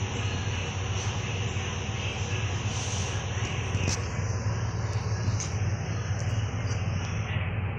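Steady mechanical drone with a strong low hum and an even hiss over it. A single sharp click about four seconds in.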